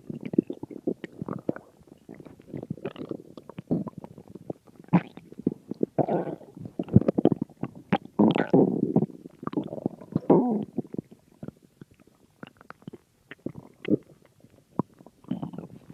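Stomach growling and gurgling: irregular rumbles and squelching pops, with a louder, longer run of gurgles in the middle.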